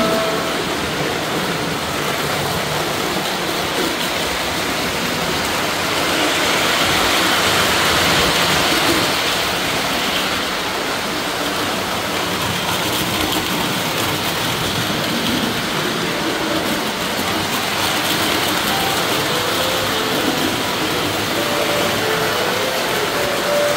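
Model train running on the layout's three-rail metal track: a steady rolling, rattling mechanical noise.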